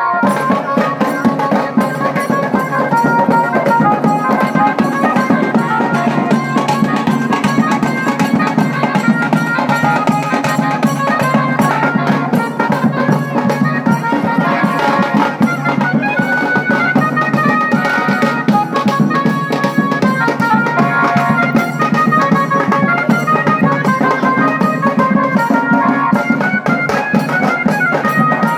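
Bengali bajna band music: barrel drums (dhol) and tasa drums beating a fast, dense rhythm, with a melody line of short stepped notes played over the drumming.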